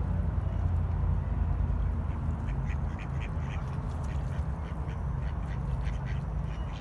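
Mallard ducks quacking: a quick run of short quacks from about two seconds in, with a few more near the end, over a steady low rumble.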